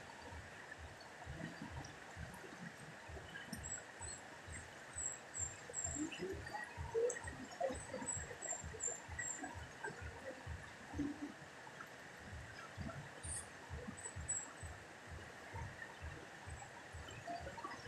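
Steady rush of a wide, fast river, with wind buffeting the microphone in low gusts and a few faint high chirps.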